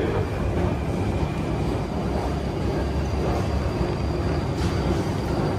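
Steady low rumble of an underground metro station's passages and escalators, an even mechanical drone with no distinct events.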